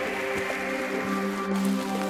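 Background music of long held notes, with a steady hiss underneath.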